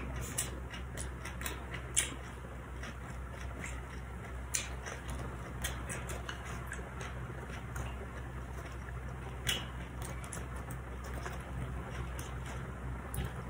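Faint, scattered clicks and rustles of hands handling lettuce leaves and fried spring rolls on a food platter, over a steady low hum.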